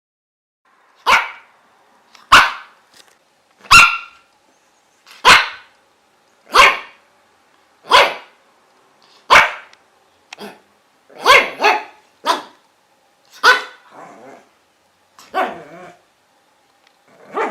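A dog barking: about a dozen short, sharp barks at a fairly even pace of one every second and a half or so, a few coming in quick pairs past the middle. Quieter, lower sounds trail the later barks.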